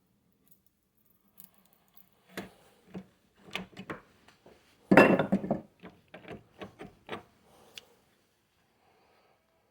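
Metal tool clinks and knocks, a string of separate clicks with a louder rattling clatter about five seconds in, typical of cutting pliers and rebar being handled.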